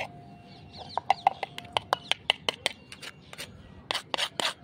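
A metal fork tapping and scraping on crisp, fried katori chaat pastry baskets: a quick run of sharp, dry clicks that shows how brittle and crunchy the shells are.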